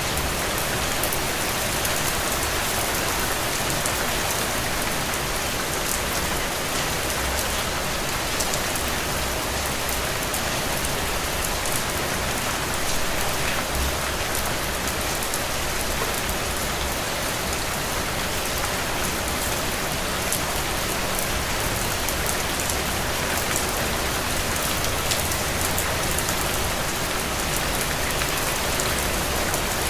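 Heavy, steady rain falling on open ground, a dense even hiss of drops with no thunder.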